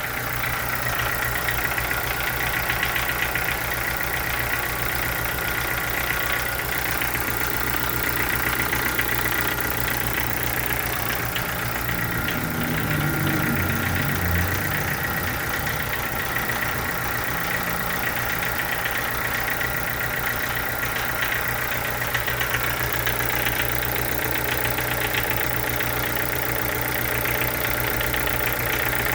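Chevrolet Corsa sedan engine idling steadily with a fast, even ticking running through it: the engine noise whose cause the owner is asking about.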